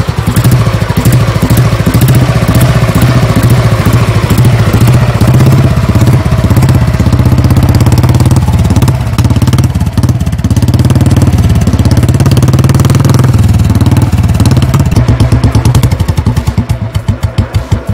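Old cast-iron-engine Royal Enfield Bullet 350 single-cylinder four-stroke running steadily after a kick start, its exhaust beat coming out of the chrome silencer in quick, even pulses. The beat wavers briefly a couple of times in the middle, and the separate pulses stand out more near the end.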